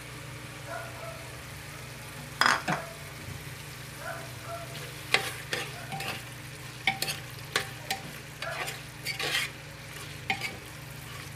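A metal spoon stirring chicken masala in a metal pressure cooker: irregular scrapes and clinks against the pot, the sharpest about two and a half seconds in, over a steady low hum.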